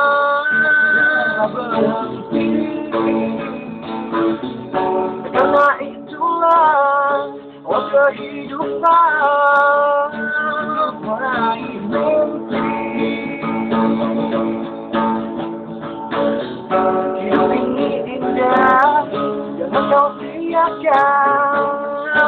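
Two acoustic guitars strummed together, with short phrases of a man's singing voice coming in now and then.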